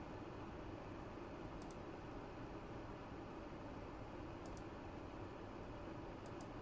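Faint clicks from a computer keyboard, coming in quick pairs three times, over a steady low room hum.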